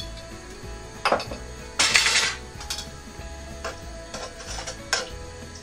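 Kitchen utensils clinking and scraping against cookware: a sharp clink about a second in, a louder scraping rattle around two seconds, and another clink near the end, over faint background music.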